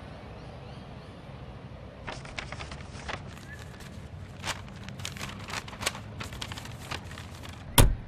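A low steady hum with a scatter of light clicks and taps, then a single loud thump near the end as a hand hits the inside of the car window.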